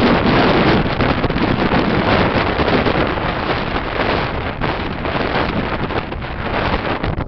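Strong blizzard wind buffeting the microphone: a loud, unbroken, gusting rush of noise, loudest in about the first second and easing a little toward the end.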